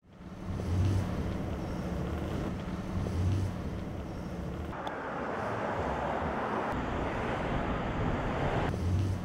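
Outdoor street ambience with wind buffeting the microphone in low rumbles. About five seconds in it switches abruptly to the louder, steady rush of traffic on a multi-lane road, which stops just as abruptly near the end.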